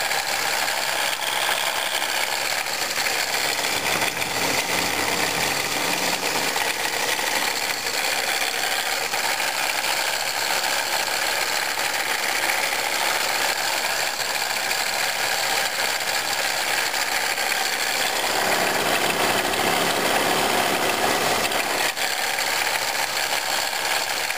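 1997 Pontiac Grand Prix GTP's supercharged V6 idling with a steady rattling, grinding noise from the supercharger, the sign of a worn supercharger drive coupler. A deeper hum swells twice for a few seconds.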